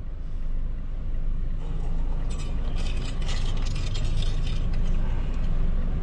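Steady low rumble of street traffic, with a run of light clinks and rattles between about two and four seconds in.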